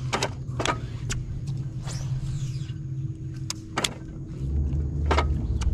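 Steady whine of a bass boat's electric trolling motor, with about six sharp clicks from the baitcasting reel being handled.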